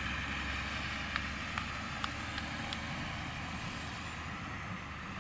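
Terra-Gator 8103 lime spreader's diesel engine running steadily as it drives, with a steady hiss over it and several sharp ticks about one to three seconds in.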